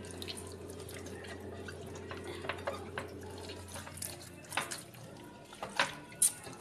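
Wet squishing and dripping of a raw whole chicken being rubbed and turned by hand in a liquid marinade on a plate, with several short wet smacks in the second half. A low steady hum stops about halfway through.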